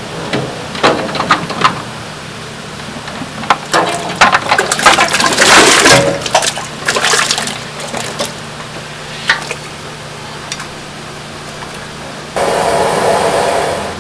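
Raw lamb pieces tipped from a metal bowl into a stainless steel stockpot of water, splashing and clattering, loudest about four to six seconds in, then a few knocks as they are stirred. Near the end a steady rushing noise starts abruptly.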